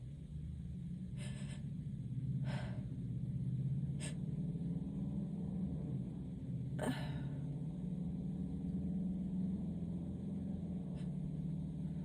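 A person with allergies sneezing: a few short, sharp gasping breaths and sneeze bursts, the sharpest about seven seconds in, over a steady low hum.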